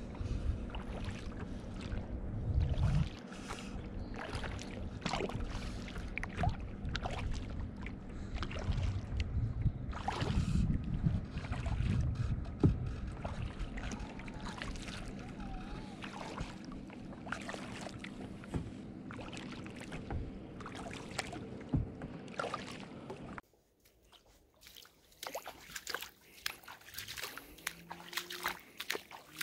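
Kayak paddling: paddle strokes splashing and dripping in lake water, with wind buffeting the microphone for the first few seconds and a steady low hum underneath. Near the end everything drops suddenly much quieter, leaving faint drips and small knocks.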